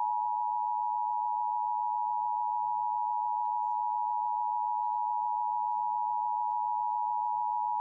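Emergency Alert System attention signal: two steady tones (853 and 960 Hz) sounding together at an even level, then cutting off abruptly. It announces that an EAS test message follows.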